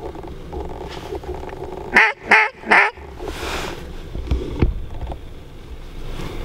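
Three loud, quick duck quacks about two seconds in, over a low rumble, followed by a single soft knock.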